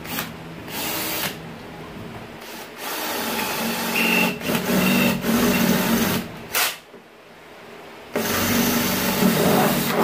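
Ryobi cordless drill boring a pilot hole through the thin sheet-metal outer wall of a chest freezer, the motor running and the bit cutting in several bursts with short stops between, the longest about three seconds through the middle and another near the end.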